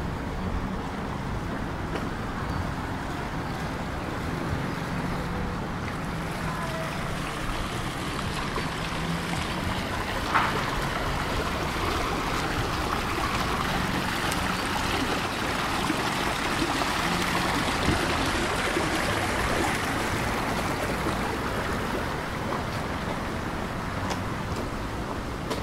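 Small fountain splashing over a boulder into its stone basin. The splashing grows louder through the middle and fades again, over a low steady rumble, with one sharp click about ten seconds in.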